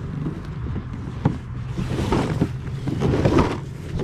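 Plastic kayak hull scraping and sliding through tall grass at the water's edge, with irregular swishing and rustling that grows louder in the second half and a sharp knock about a second in. A steady low hum runs underneath.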